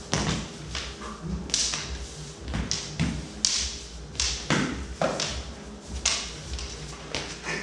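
Sword-and-dagger sparring: steel practice blades striking each other in a quick irregular string of sharp clacks, mixed with thuds of feet stepping and stamping on a hard floor.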